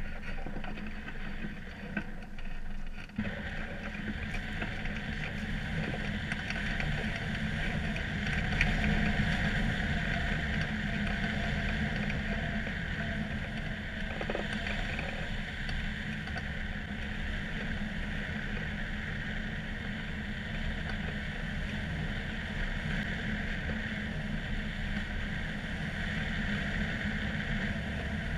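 Wind rushing over a hang glider and its wing-mounted camera in flight: a steady rush with a low buffeting rumble, which swells about three seconds in as the glider takes off.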